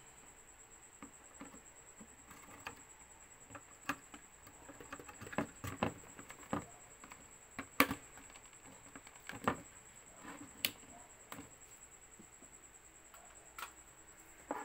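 Scattered plastic clicks and taps of a HyperX desktop memory module being fitted into a motherboard RAM slot, the loudest sharp click about halfway through as it is pressed home. A faint steady high tone runs underneath.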